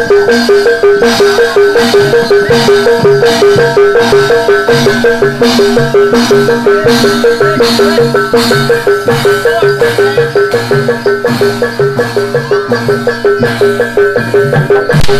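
Live barongan accompaniment music: a Javanese gamelan-style ensemble of drums and metal-keyed percussion playing a fast two-note alternating figure over an even beat of about four strokes a second.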